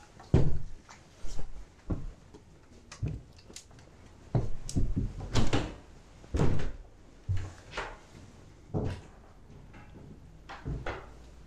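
Footsteps on bare timber floorboards: irregular thuds and knocks as people walk through an empty house.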